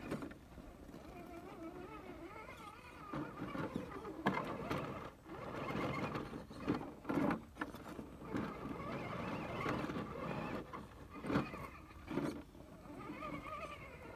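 Electric RC rock crawler's motor and drivetrain whining, rising and falling in pitch as the throttle is fed in and eased off, with knocks and scrapes of the tires and chassis against rock.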